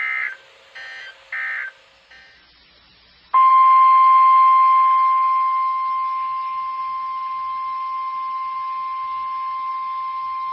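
Emergency Alert System data bursts: a few short, evenly spaced buzzy chirps that close the previous warning. About three seconds in, the NOAA Weather Radio 1050 Hz attention tone starts abruptly, a single loud, steady high beep that holds without a break.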